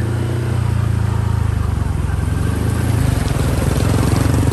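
A small engine running steadily at close range, with a low, even hum.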